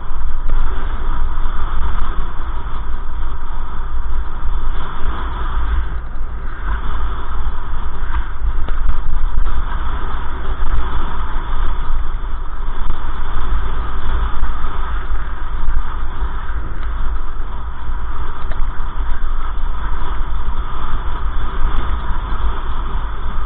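Loud, steady wind and road rumble on a moving camera's microphone, with a heavy low buffeting and no clear pitch.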